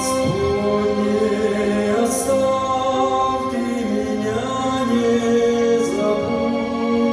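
Choral singing in long held notes, voices moving slowly between pitches, with no clear words.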